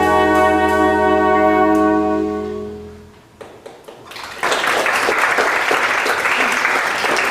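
Jazz sextet of trumpet, alto and tenor saxophones, keyboard, acoustic bass and drums holding its final chord, which dies away about three seconds in. A few scattered claps follow, then audience applause breaks out and carries on.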